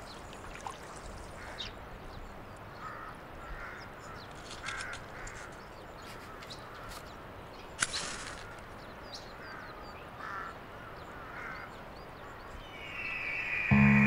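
Crows cawing now and then over a quiet outdoor background, with a single sharp click about eight seconds in and a hiss rising near the end.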